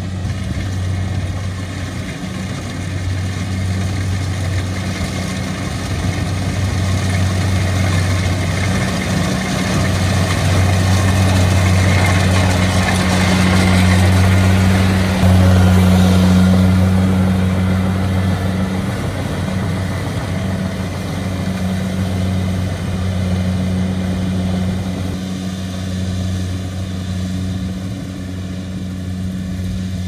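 Kubota rice combine harvester running steadily as it cuts and threshes rice, its diesel engine hum mixed with threshing and cutting noise. It grows louder about halfway through as it passes close by, then eases off as it moves away.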